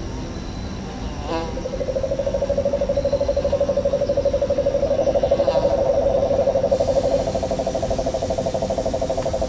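Bee-buzzing sound effect from an area's ambient soundtrack: a steady, fluttering buzz that starts about a second in, with a second, slightly higher buzz joining midway.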